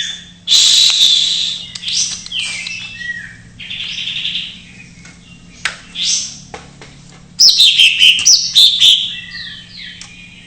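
Green leafbird (cucak ijo) singing a varied song of fast trills, chatters and whistles, filled with mimicked calls of other birds. The loudest bursts come about half a second in and again about seven seconds in.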